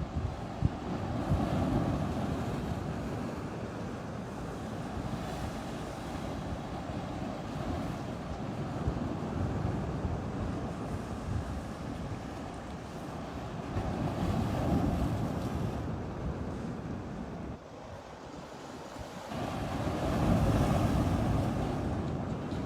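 Sea waves breaking and washing on the shore, swelling loudly three times, with wind buffeting the microphone.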